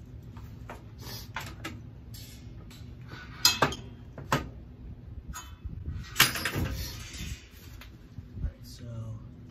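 Metal hardware on a tree-stand strap clicking and clinking as it is handled, with a few sharp clicks in the middle and a louder clank about six seconds in, over a low steady hum.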